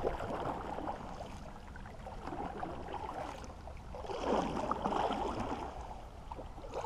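Water sloshing and splashing against the hull of a small boat, swelling louder for a second or so about four seconds in.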